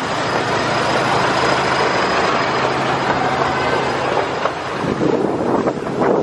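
Miniature railway diesel locomotive passing close by, its engine running with a steady low drone over the rumble of its wheels on the track.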